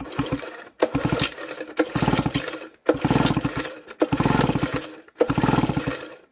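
Sachs Stamo two-stroke engine turned over by its pull-cord recoil starter, pulled about once a second, six times. Each pull is a short fast whirr of the engine spinning freely with its spark plug out and no compression, puffing oil from the freshly oiled cylinder out through the exhaust.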